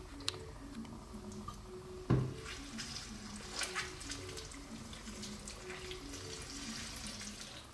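Tap water running and splashing over a block of ice to melt it, with a knock about two seconds in.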